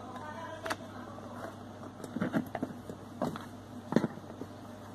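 Small plastic and metal parts of a single-lever mixer tap being handled: a short squeak at the start, then irregular clicks and knocks as the plastic cartridge parts come away from the chrome tap body, the loudest knock about four seconds in.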